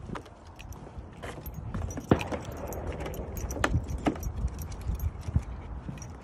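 Metal ID tags on a dog's collar jingling as a Pembroke Welsh Corgi puppy trots on a leash, with irregular knocking footsteps of shoes and paws on wooden boards. A steady low rumble runs underneath.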